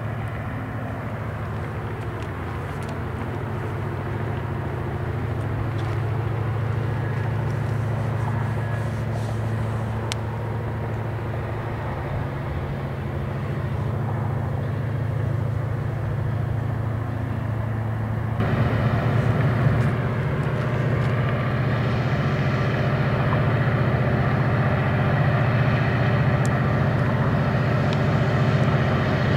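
Union Pacific diesel-electric locomotives running as they approach, a steady low engine drone. About two-thirds of the way through it turns louder and fuller.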